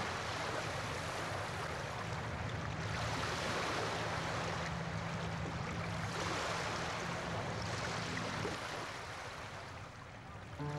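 Rushing, washing water like waves or a boat's wake, with a low steady hum under it that stops about eight and a half seconds in.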